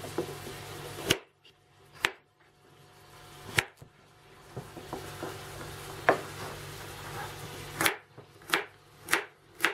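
Kitchen knife cutting carrots on a wooden cutting board: irregular sharp knocks of the blade hitting the board, coming quicker near the end.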